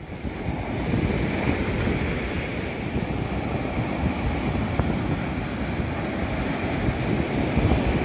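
Steady rushing noise of wind and surf.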